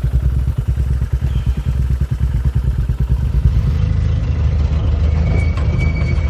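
Motorcycle engine running steadily with a rapid, even low beat.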